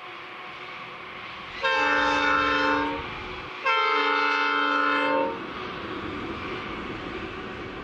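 Coal train's locomotive horn sounding two long blasts of several notes at once, about a second and a half each with a short gap between, as the train approaches a grade crossing. The train's steady rumble runs underneath and carries on after the horn stops.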